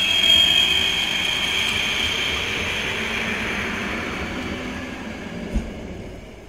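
Stadler FLIRT electric multiple unit running past at speed and pulling away: wheels on the rails and a high whine that sinks slightly in pitch, fading steadily as it recedes.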